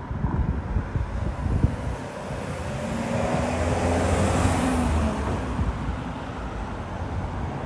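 A motor vehicle driving past on the street: engine hum and tyre noise swell to a peak about halfway through, then fade as it moves away.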